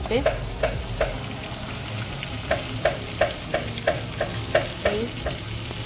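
Chicken drumsticks sizzling in mustard oil and spice paste in a nonstick frying pan as they are turned. A run of light clicks, about three a second, sounds through the middle.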